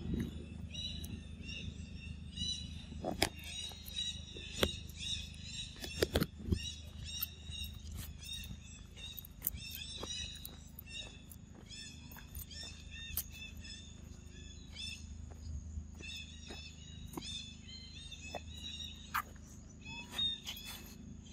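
Repeated short, high chirping calls from small animals, thinning out for a few seconds in the middle, over a steady low rumble, with scattered sharp clicks and knocks, the loudest around three and six seconds in.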